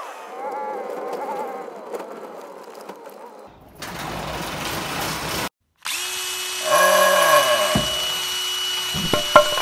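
Road noise inside a moving car gives way to the rattling hiss of a roll-up garage door. A short silence follows, then a logo sound effect of a cordless drill whirring and winding down, ending in a few sharp knocks.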